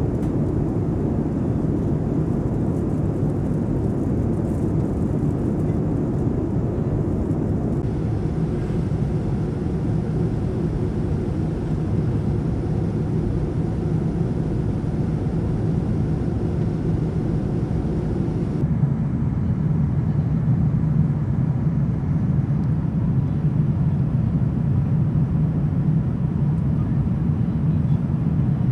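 Airliner cabin noise inside a Boeing 787-9 in flight: a steady low drone and rush of air and its two GEnx-1B engines. About two-thirds of the way through, the sound changes abruptly and the low drone grows louder.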